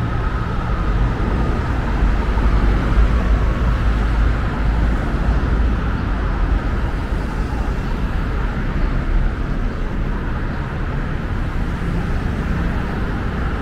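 City street traffic: motor vehicles passing with a steady low rumble, a little louder a few seconds in.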